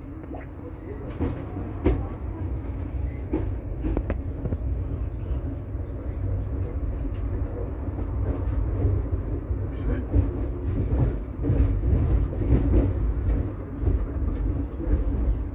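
KTM-23 tram running along the track, heard from inside the car: a low rumble from the wheels and running gear with scattered knocks and clicks, growing louder as it goes.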